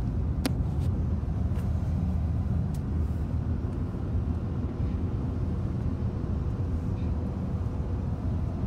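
Steady low rumble of road and engine noise inside a moving vehicle's cabin, with a few light clicks in the first three seconds.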